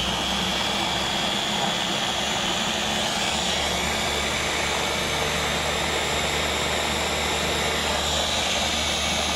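Countertop blender running steadily at high speed, puréeing leafy greens, banana and fruit with apple juice into a smoothie. The motor gives a steady high whine over a low hum.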